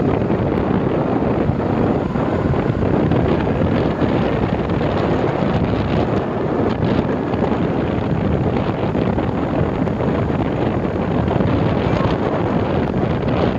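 Steady wind rush on the microphone mixed with the running noise of a vehicle driving along a mountain road: engine and tyres, with no clear pitch.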